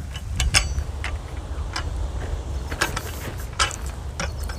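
A double-edged steel stirrup-hoe hand weeder scraping through dry, cloddy soil in short push-pull strokes, cutting weeds off at the roots. The strokes come as a run of irregular scrapes and clicks, a few with a brief metallic clink.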